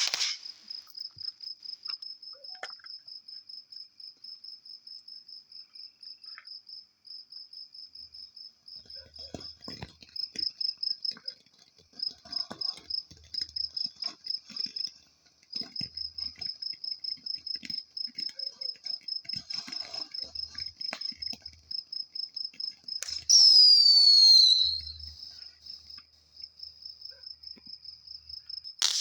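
Crickets chirping in a steady, rapid, even pulse. About 23 seconds in, a loud falling whistle lasting over a second rises above them.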